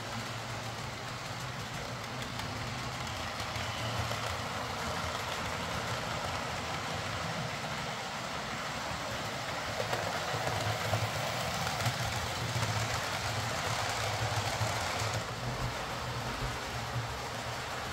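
Hornby Class 43 HST OO gauge model's ringfield motor running, with its wheels rolling on the track: a steady hum with rail noise that grows louder past the middle and drops back near the end. The locomotive is freshly serviced with a new traction tyre and now runs properly.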